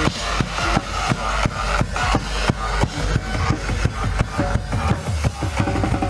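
Rock music with a fast, steady drum-kit beat: kick and snare strokes several times a second over a full band.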